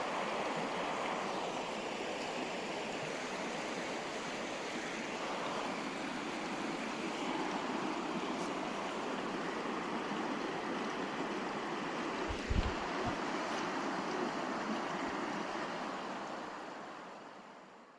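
River water flowing steadily, with a brief low thump about two-thirds of the way through, fading out near the end.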